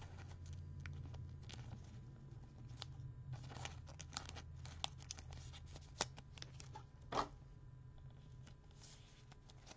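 Thin plastic card sleeve crinkling and rustling as a trading card is slid out of it and handled with a clear hard plastic card holder, with a string of small crackles and two sharper clicks about six and seven seconds in. A low steady hum runs underneath.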